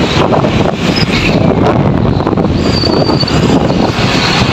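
Loud, steady wind buffeting on the microphone of a motorcycle riding at speed, mixed with the motorcycle's running noise.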